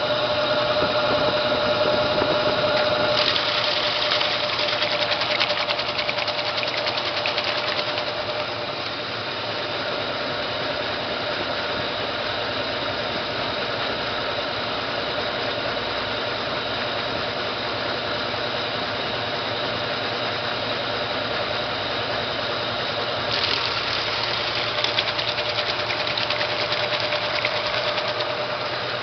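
Brastemp Clean washing machine in an unbalanced intermediate spin: the motor and drum hum steadily with a few held tones. Twice, for about five seconds each, a fast rattle joins in, once a few seconds in and again near the end. The load is off balance, but the machine does not walk.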